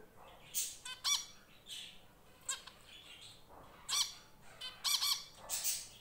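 Small white pet birds calling: about ten short calls, spaced unevenly, some in quick pairs.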